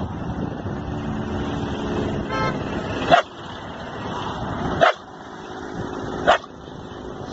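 A dog barking three times, single sharp barks about a second and a half apart, over a steady background noise.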